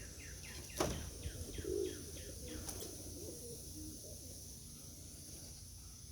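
A songbird calling a quick run of about ten short, falling chirps, roughly three a second, over a steady high insect buzz, with a sharp knock about a second in.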